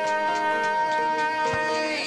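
Background music: one long held note over a light, regular ticking beat.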